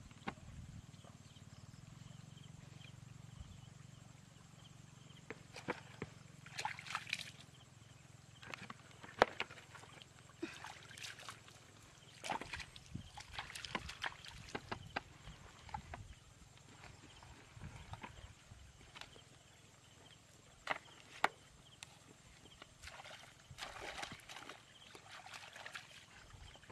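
Faint, irregular rustling, knocks and wet sloshing of hands working in a muddy hole and feet moving through grass and mud, with a low steady hum in the first half.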